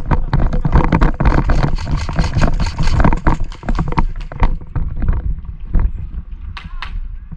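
Quick, irregular clattering footsteps and knocks of gear over a heavy low rumble on the microphone, dense for the first few seconds and thinning out after.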